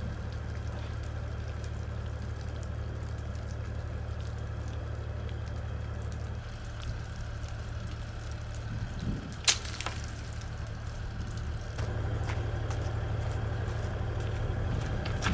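JR KiHa 110 diesel railcar's engine idling at a station stop, a steady low hum that changes in strength twice. A single sharp click comes about nine and a half seconds in.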